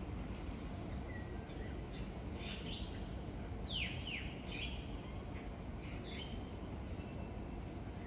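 Myna calling: a scatter of short chirps and a few quick falling whistles, loudest about four seconds in, over a steady low background rumble.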